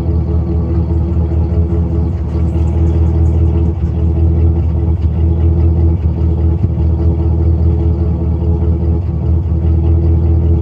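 1999 GMC Sierra's 5.3-litre V8 exhaust idling steadily, with a few brief dips in its beat. The engine has a random misfire, which the owner traced to a spark plug with microscopic cracks.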